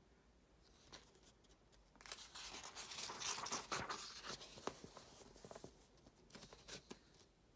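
Paper pages of a printed workbook rustling as a page is turned by hand, followed by a few lighter rustles near the end.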